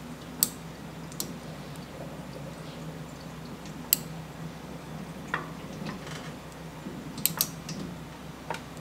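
Sharp metallic clicks and ticks of a hex driver working the loosened brew-head bolts inside a La Marzocco Linea Mini espresso machine, about half a dozen scattered taps, over a low steady hum.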